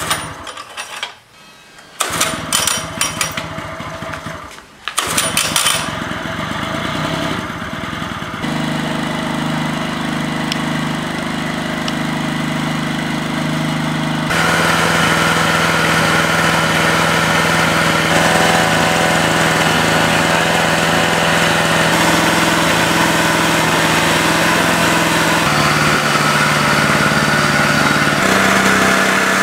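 Yamaha ET900 portable generator pull-started with its recoil starter: a few ragged pulls and sputters, then the small engine catches about five seconds in and settles into a steady run.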